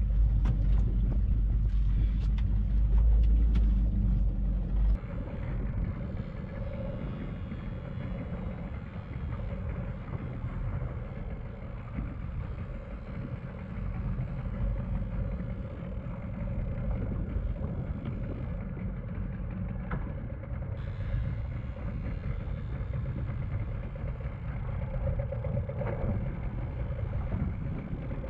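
Small outboard motor running steadily as the boat trolls, with the rush of water against the hull. Before that, for the first few seconds, wind buffets the microphone and a few knocks come from a fish being handled in the boat.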